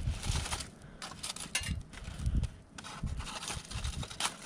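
A stick prodding a foil-wrapped fish packet in the coals of a campfire: irregular low thuds and knocks, with scattered sharp clicks and crinkles of the aluminium foil.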